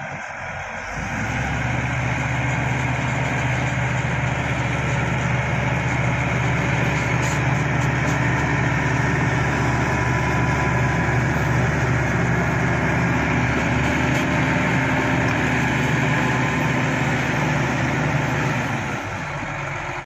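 Shantui SD16 crawler bulldozer's diesel engine running steadily under working load as the dozer moves earth. The engine swells about a second in and eases off near the end.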